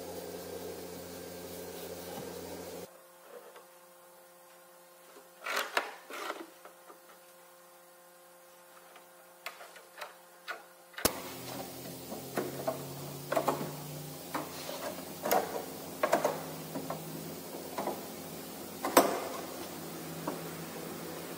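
Steady workshop hum, then a run of sharp metal clicks and knocks as bar clamps are slid along their bars and screwed tight around a glued wooden frame. The sharpest knock comes near the end.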